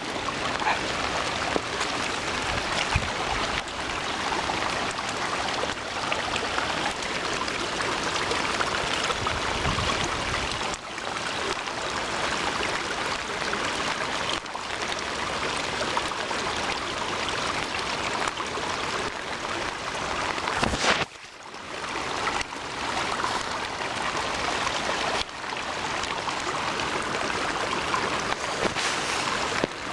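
Fast floodwater rushing steadily in a swollen river, the flow running much higher than normal. The level dips briefly about two-thirds of the way through.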